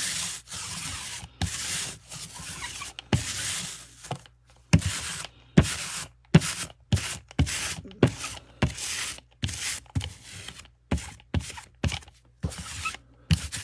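Sticky lint roller rolled back and forth over a break mat to lift dust off it: a run of rubbing strokes, longer ones at first, then quicker, shorter ones.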